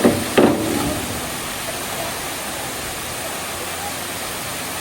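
Waterfall rushing steadily into a swimming hole. A couple of short voices call out in the first second.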